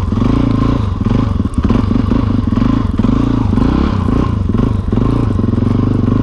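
Motorcycle engine pulling in first gear at low speed through deep snow, its revs wavering a little.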